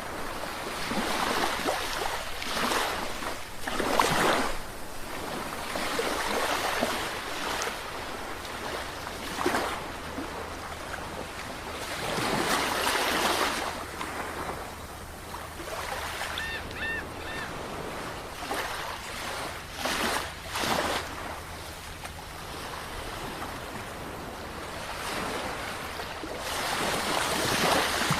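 Sea waves breaking and washing ashore in repeated surges that swell and fade every few seconds. A brief high chirping call cuts through about halfway in.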